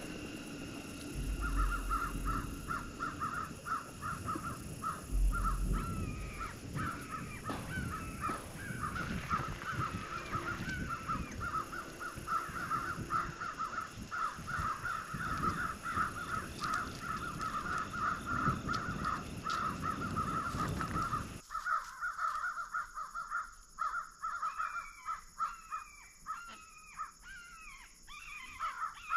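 A flock of birds calling, many short repeated calls overlapping without a break. A low rumbling noise under them cuts off abruptly about three-quarters of the way through.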